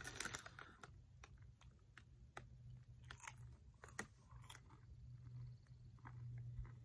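A person chewing sprinkle-coated popcorn balls with the mouth closed: soft, scattered crunches and clicks. Just at the start, a plastic snack bag crinkles briefly as a hand pulls a piece out.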